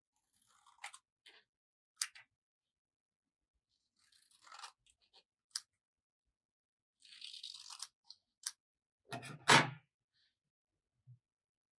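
Scissors snipping through paper in short, separate cuts with light paper rustling between them, then a louder clack near the end as the scissors are put down on the table.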